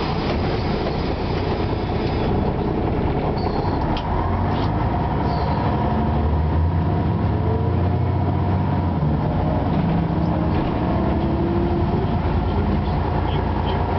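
Interior sound of an Ikarus 260 city bus under way: its diesel engine runs steadily under the road and body noise, and the engine grows louder a few seconds in as the bus pulls along.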